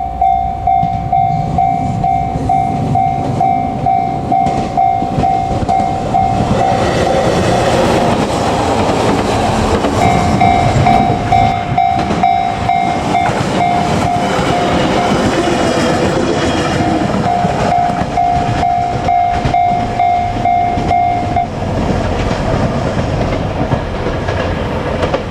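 Japanese level-crossing alarm ringing in an even ding-ding, about two strikes a second, while a JR Kyushu 817 series electric train runs past with wheels clattering on the rails. The alarm stops a little past the three-quarter mark as the crossing clears.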